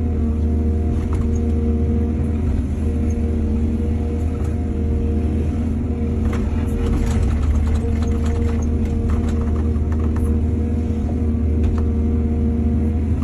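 Heavy diesel engine of an excavator running steadily at an even pitch. A run of short clicks and knocks over it from about halfway to near the end.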